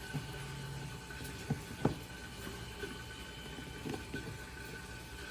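Low steady room hum with a few short, light knocks, two of them close together about two seconds in.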